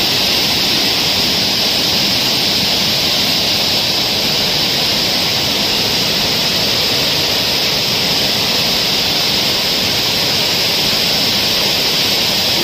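Loud, steady rushing of water forced out under a dam's spillway gate that is raised only one foot, showing the great pressure of the full reservoir behind it.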